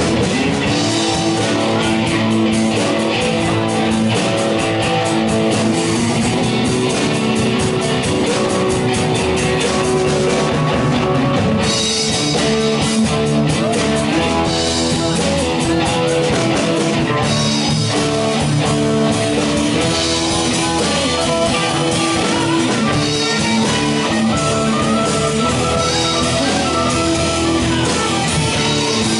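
Live rock band playing: several electric guitars over a drum kit, loud and steady throughout.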